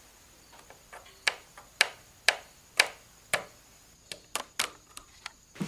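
Light plastic taps and clicks of a doll being moved on a plastic toy slide, about two a second at first, then several quicker ones about four seconds in.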